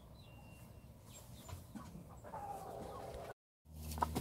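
Hen clucking softly, with a drawn-out low call about two and a half seconds in. The sound breaks off briefly, then a steady low hum with a few sharp ticks comes in near the end.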